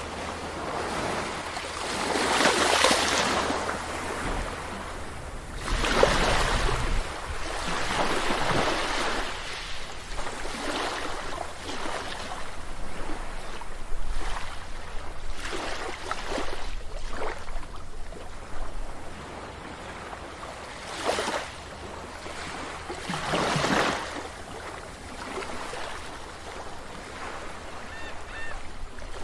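Sea waves breaking and washing up a beach, the surf swelling several times with a wash of foam in between. A brief faint gull cry near the end.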